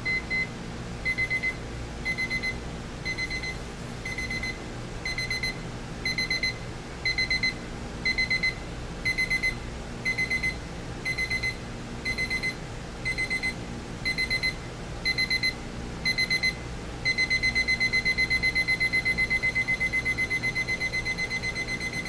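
Advance 2064/2065 battery travel alarm clock sounding its ascending beep alarm: a high electronic beep, first in single short beeps, then in quick clusters about once a second, and from a few seconds before the end as a continuous rapid beeping.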